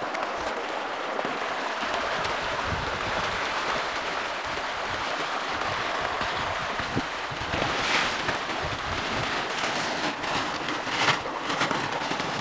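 Many pangasius catfish splashing and thrashing at the pond surface as they feed, a steady splashing with a couple of louder surges in the second half.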